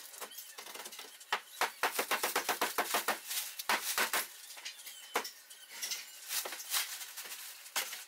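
A black plastic garbage bag crinkling and rustling as it is handled, in quick irregular runs of sharp crackles.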